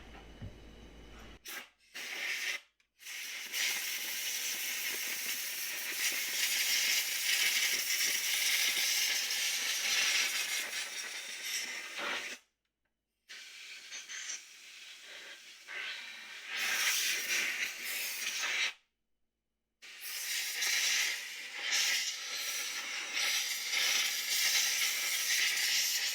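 Compressed air from a small air compressor's blow gun hissing as it blows dust out of refrigerator condenser coils. It comes in long, steady blasts with a few sudden stops.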